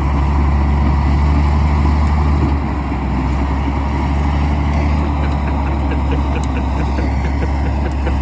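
Komatsu D65E bulldozer's diesel engine running with a steady low drone. It eases off slightly a few seconds in, and a faint regular ticking comes in over the second half.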